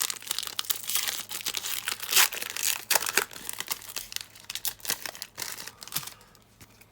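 Foil wrapper of a Pokémon TCG booster pack being torn open and crinkled by hand, a dense run of crackles that dies down about six seconds in.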